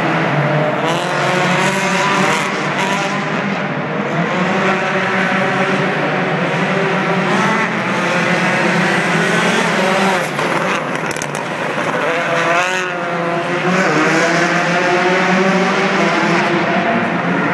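Citroën C4 WRC rally car's turbocharged 2.0-litre four-cylinder engine revving hard, its pitch repeatedly climbing and dropping through gear changes as it drives the track. A few sharp cracks come about ten seconds in.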